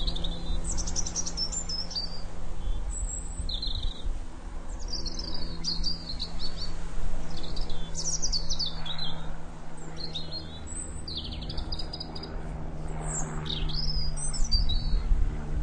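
Birds singing and chirping: short phrases of quick, high notes, many sliding downward, repeat every second or two. Under them runs a steady low hum.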